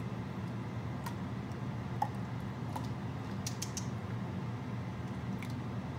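A metal ladle clicking and clinking against a stainless steel stockpot as hot grape juice is stirred and ladled for jelly: a handful of scattered light clicks, the loudest about two seconds in and a quick run of three near the middle, over a steady low hum.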